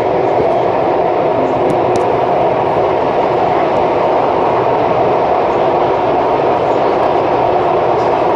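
Beijing subway train running at speed, heard from inside the car: a loud, steady noise of the train in motion.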